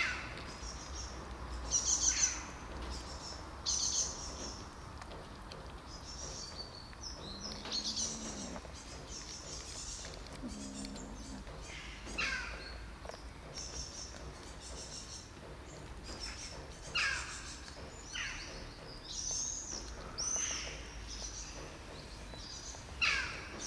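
Birds chirping and calling again and again, several calls sweeping quickly down in pitch, over a steady low background hum.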